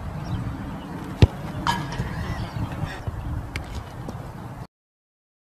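Outdoor wind rumble on a phone microphone, with one sharp thud of a football being struck about a second in. A short high-pitched cry follows right after. The sound cuts off abruptly near the end.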